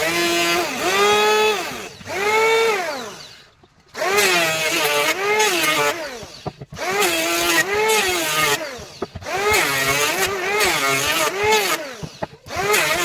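Handheld electric power tool working wood in repeated passes of two to three seconds, its motor whine dipping in pitch as it bites into the wood and rising again as it eases off, with brief pauses between passes.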